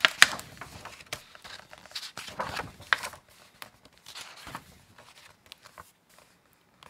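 Pages of a hardcover picture book being turned by hand: several short paper rustles with soft taps and clicks as the pages and cover are handled.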